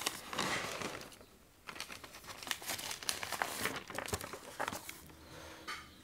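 Crinkling and rustling of something being handled, in quick irregular bursts that thin out near the end.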